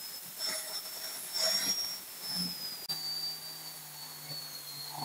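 Angle grinder fitted with a foam-backed sanding disc running with a steady high whine. The steel knife blank is pressed against the disc twice in the first two seconds, in short spells of sanding hiss.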